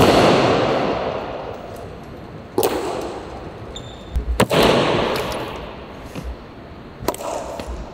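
Honor guard's drill in the changing of the guard: four sharp strikes on the marble floor, about every two and a half seconds, each ringing out in a long echo through the stone hall.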